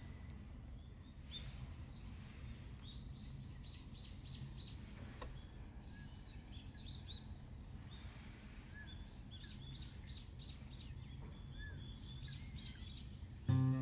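Small birds chirping in quick short notes, again and again, over a faint steady low outdoor background.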